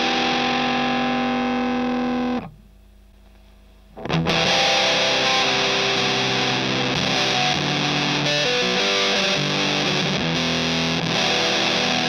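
Electric guitar played through a Tonebender MkII clone fuzz pedal. First comes a held, ringing fuzz chord on the pedal's lowest-gain setting, which is cut off about two and a half seconds in. After a brief pause, fuzzed riffing with changing notes starts on a medium-gain setting.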